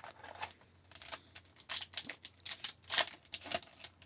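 A foil trading-card pack being torn open and handled: a quick, irregular run of sharp crinkles and swishes as the wrapper crackles and cards slide. The crackling is busiest through the middle.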